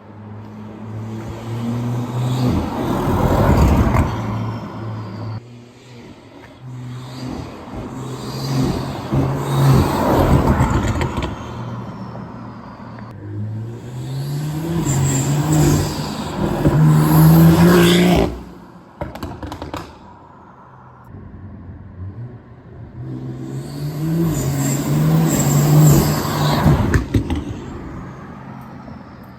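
BMW X3 M40i's B58 turbocharged inline-six, breathing through an aftermarket front mount intake, accelerating hard four times, its note climbing in pitch on each pull before backing off. The third pull cuts off abruptly, and a faint falling whistle follows the first and last pulls.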